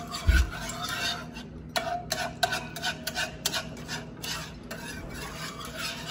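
Wire whisk stirring a flour-and-milk paste in an enamel saucepan, the metal tines scraping and clicking against the pan in quick, irregular strokes, to keep the paste from lumping as it thickens. A low thump comes just after the start.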